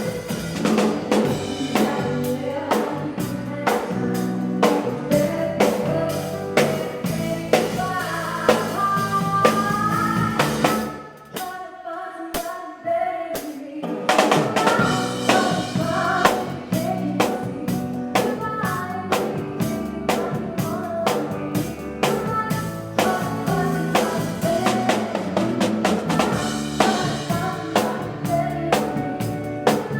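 Live band with a full drum kit, bass and guitars playing a song. About eleven seconds in, the drums drop out for a few seconds of held chords, then the full band comes back in.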